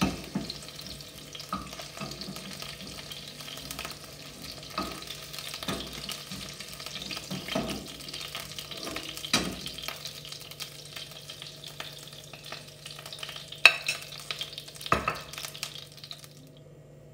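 Chicken pieces sizzling and crackling in hot oil in a frying pan, with a spatula scraping and knocking against the pan several times as the pieces are lifted out. The sizzle cuts off abruptly just before the end.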